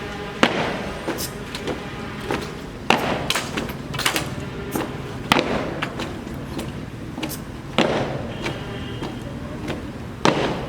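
Rifle drill: a string of sharp, irregular slaps and knocks as rifles are handled in unison, one every half second to a second, the loudest about three, five and ten seconds in.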